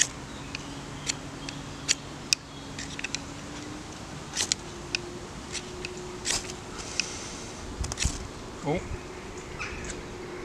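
Ferro rod struck again and again with a steel edge, about a dozen short sharp scrapes at uneven intervals, throwing sparks onto fine wood shavings to light a fire that is slow to catch. A fly or bee buzzes steadily close by, its hum shifting higher about halfway through.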